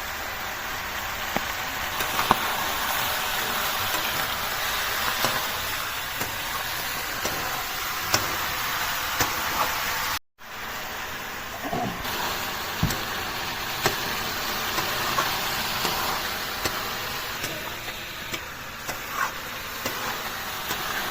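Chicken frying in mustard oil with onion and garlic paste in a kadai: a steady sizzle with occasional sharp clicks. The sound cuts out for a moment about halfway, then carries on the same.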